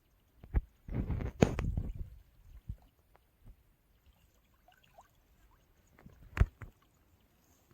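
Water splashing for about a second near the start, with a sharp knock just before it and one loud sharp knock later.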